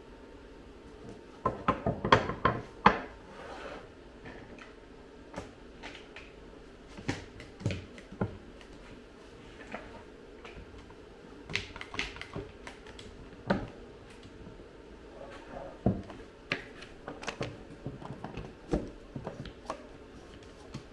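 Blue plastic quick-grip bar clamps clicking and knocking as they are ratcheted tight around a Kydex forming press, with a cluster of sharp knocks about two seconds in and scattered clicks after.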